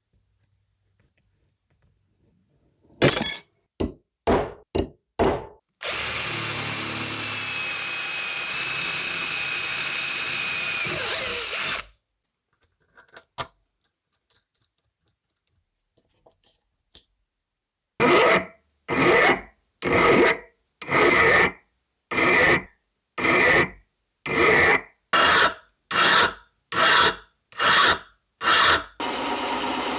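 Metalworking tool sounds: a few short strokes, then a power tool runs steadily for about six seconds with a faint high whine, some small clicks, and then a long even series of hand-tool strokes, about one and a half a second. Near the end a steady machine sound starts.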